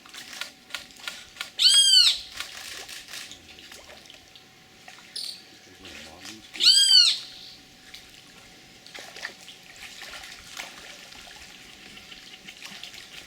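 Giant otter giving two loud, high squealing calls, each about half a second long and arching up then down in pitch, about five seconds apart. Between them come wet clicks and crunches of an eel being chewed.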